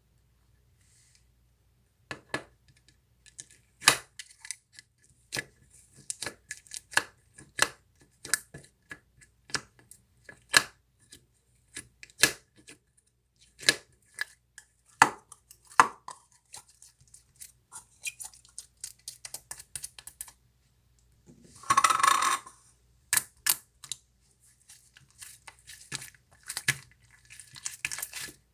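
Cream slime being pressed and worked by hand, giving irregular sharp bubble pops and clicks, about one or two a second. About three quarters of the way through comes a longer squelch lasting about a second.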